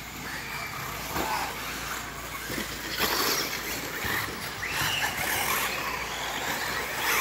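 Radio-controlled off-road buggies racing on a dirt track: motors whining up and down in pitch as they speed up and slow, over a steady noise of tyres on loose dirt, with a few sharp knocks.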